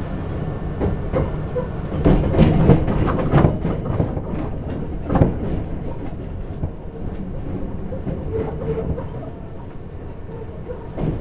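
Hankyu electric train running, heard from inside the car, its wheels clattering over rail joints and points in a cluster of knocks about two seconds in and again about five seconds in. The running noise is steady and grows quieter in the second half.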